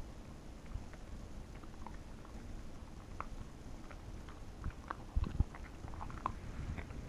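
Pembroke Welsh corgi eating treats off the floor: irregular small crunches, clicks and mouth smacks of chewing and licking, with a couple of dull knocks about five seconds in.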